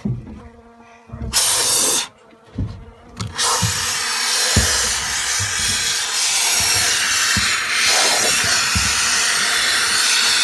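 Aerosol can spraying: a short burst of hiss about a second in, then a long steady hiss from about three seconds on, with scattered low knocks of handling underneath.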